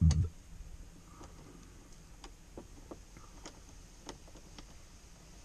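Small plastic clicks and taps from hands fitting a plastic switch-panel mount and its wiring to a Jeep's grab bar, with one dull low thump right at the start.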